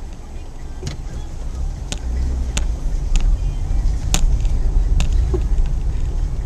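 Car driving, heard from inside the cabin: a steady low engine and road rumble with sharp light clicks about once a second at uneven intervals.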